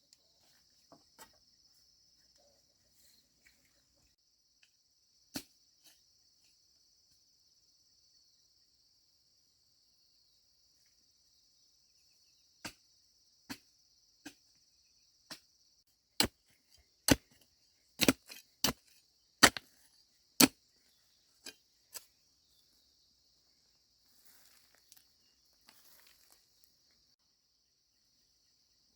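Insects chirring steadily at a high pitch, with a run of sharp tool strikes on wood, about one a second, through the middle stretch; the loudest blows fall near the middle.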